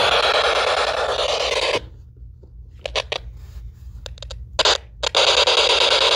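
SB-7 spirit box sweeping rapidly through radio stations, giving a stream of loud static hiss. About two seconds in it drops almost out for some three seconds, leaving only a few short crackles, then the loud static comes back near the end.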